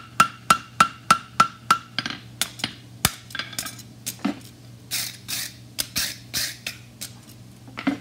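Hand hammer striking a red-hot steel horseshoe on the anvil, a quick even run of about three to four blows a second with the anvil ringing. About two seconds in, the blows turn slower and irregular as the shoe is moved from the horn to the anvil face.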